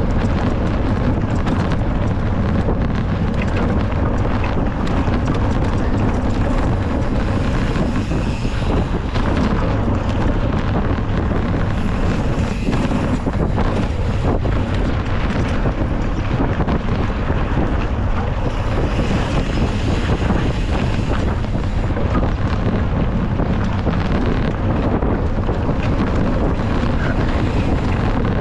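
Wind buffeting the microphone of a mountain biker's race camera, a loud steady rumble, with the bike's tyres and frame rattling over rough trail as a fast run of small knocks.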